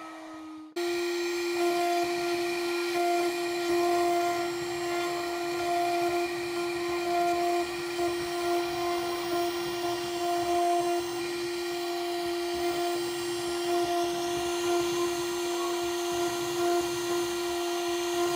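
CNC router spindle whining at a steady pitch while a 90-degree V-bit engraves lettering into a wooden board, with the noise of the cut under the whine. The sound jumps in suddenly about a second in, after a fainter, slightly falling whine.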